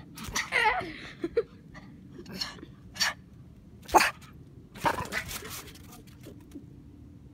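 Small dog barking: a string of short, sharp barks, the loudest about four seconds in.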